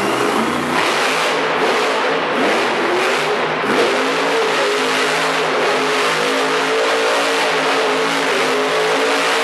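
Monster truck engine running hard and revving, its pitch swinging up and down a few seconds in, then holding high and steady.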